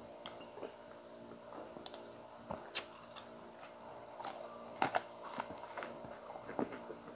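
A person chewing and biting food eaten by hand, with short wet smacks and clicks scattered irregularly through. A faint steady hum runs underneath.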